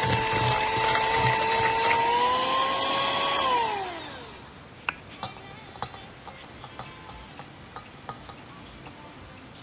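Electric hand mixer running steadily with a whine as its beaters whip butter and sugar in a metal bowl. The pitch rises slightly, then falls away as the motor is switched off and spins down about four seconds in. After that come a scattering of light clicks.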